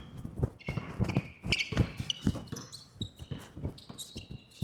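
Basketball being dribbled on a gym floor, a run of thuds a few to the second, with short high sneaker squeaks on the court.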